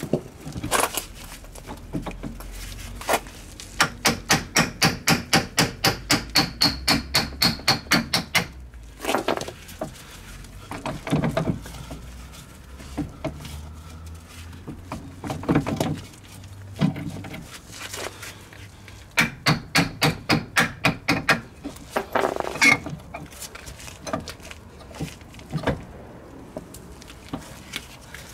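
Quick runs of sharp metal knocks, about five a second, in two bursts with a few single knocks between, as the driveshaft's outer CV joint is worked loose from the front wheel hub.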